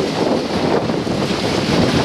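Hurricane-force wind rushing and buffeting the microphone in a loud, steady roar of noise.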